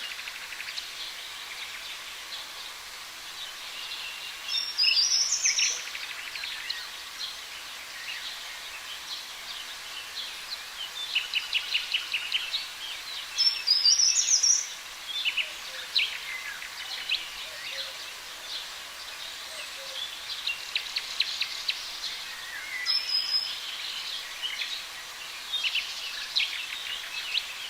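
Several wild birds singing and chirping over a steady background hiss, with rapid trills and two loud high phrases about five and fourteen seconds in.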